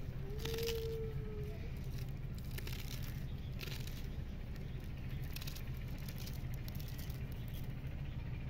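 Fresh spinach leaves being cut by hand with a small knife: irregular crisp snaps and rustles of the leaves over a steady low hum, with a brief steady tone near the start.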